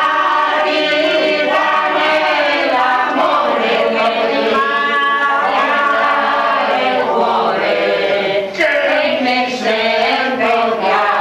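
A small group of men and women singing a song together loudly, holding long notes.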